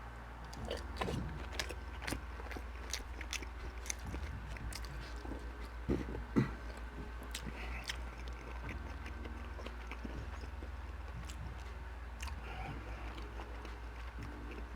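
A person chewing and biting food close to the microphone, with many sharp mouth clicks and smacks, two louder ones about six seconds in. A steady low hum runs underneath.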